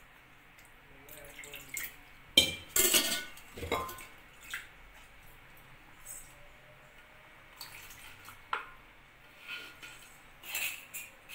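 A steel spoon clinking and scraping against a metal kadai a few times, the loudest clinks about three seconds in, over the faint bubbling of payasam simmering in the pan.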